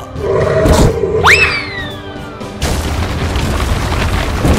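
Cartoon fight sound effects over background music. There is a hit under a second in, then a tone that jumps sharply up in pitch and slowly falls, and a loud, steady rumbling noise through the last two seconds.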